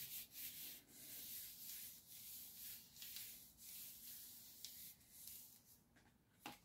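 Faint, repeated swishing of palms rubbing and pressing down over a folded paper card, smoothing it so the glued layers stick on all sides. The rubbing eases off near the end, followed by a couple of light taps.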